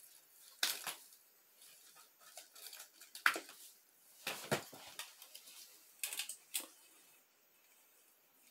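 Scattered sharp clicks, knocks and rustles as gloved hands push artificial plants down into the white gravel and stones of a glass jar terrarium; the loudest click comes a little over three seconds in.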